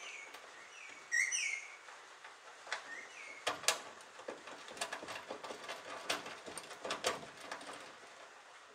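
Birds chirping with short downward-sweeping chirps in the first three seconds, the loudest burst about a second in. After that comes a run of small clicks and taps as the gas strut's mounting bolts are threaded in by hand.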